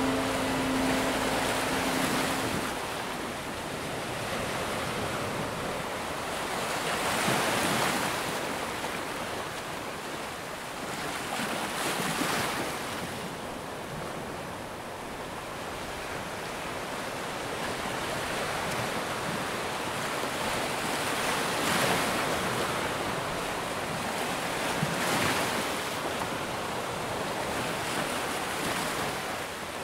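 Sea waves washing onto a rocky shore, the surf swelling every few seconds, with wind.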